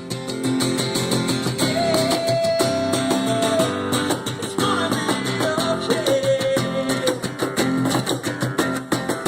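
Live acoustic rock band playing an instrumental stretch: fast, driving acoustic guitar strumming, with a long held note sounding over it twice.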